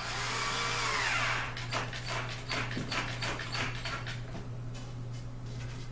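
A scrape with a rising-then-falling pitch, then a run of irregular clicks and rattles, as of furniture parts or hardware being handled.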